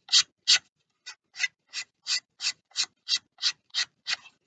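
Abrasive paper rasping back and forth against the edge of a laminated balsa wheel, about three short strokes a second with a brief pause just under a second in, as the outer edge of the tyre is sanded to a 45-degree chamfer.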